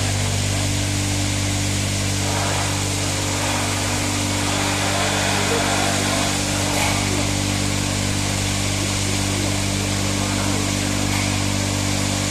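Ambulance disinfecting and washing machine running steadily: an even motor hum under a continuous hiss.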